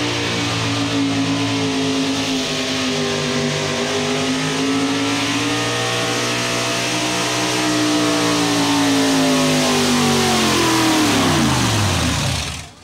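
Chevrolet pulling truck's engine held at high revs under load, dragging a weight-transfer sled, its pitch wavering slightly. Near the end the revs fall away steadily, and the sound cuts off abruptly.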